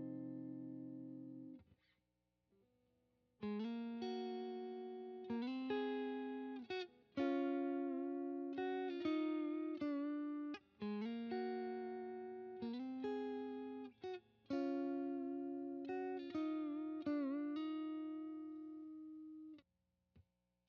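Custom single-pickup electric guitar with an alder body and maple neck, played through a clean tone. A ringing chord fades out, and after a short pause a series of chords is picked, each left to ring and decay. There is a brief wobble in pitch near the end, then the last chord dies away.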